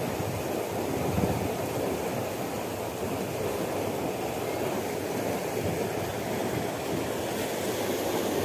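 Steady rushing of water flowing through a concrete canal gate, mixed with wind buffeting the microphone.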